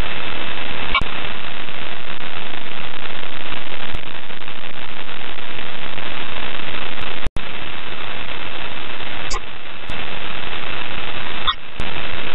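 Loud, steady hiss of an open space-to-ground radio channel between transmissions, broken by a few sharp clicks and short dropouts, the longest about seven seconds in.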